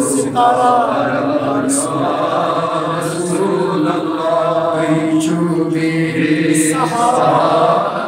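An elderly man chanting a Kashmiri naat, a devotional poem in praise of the Prophet, in long drawn-out melodic lines.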